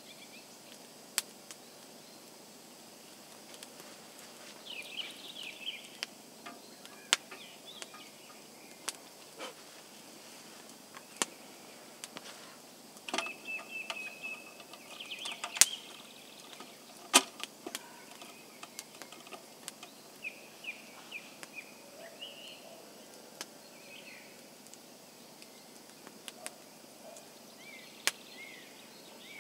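Small wood campfire crackling, with scattered sharp pops at irregular intervals. Birds chirp in short bursts now and then over it.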